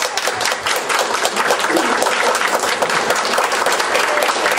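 Audience applauding: many hands clapping in a dense, even stream.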